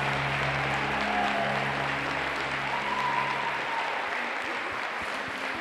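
Audience applauding while a low held note of the music rings under it and stops about two-thirds of the way through; the applause carries on.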